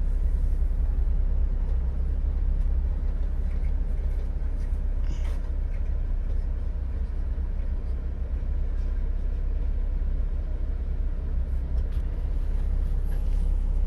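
Car's engine running with a steady low rumble, heard from inside the cabin.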